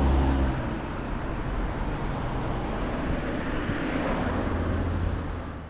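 Road traffic passing on the street: tyre noise with a low engine hum, loudest at the start and rising again near the end, before fading out.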